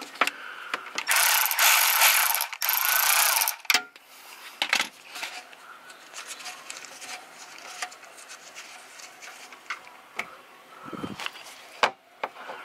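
Ratchet wrench with an Allen socket clicking rapidly as it backs out an oil-pan drain plug, loudest for about three seconds starting a second in, followed by quieter scattered clicks and taps of the tool and plug.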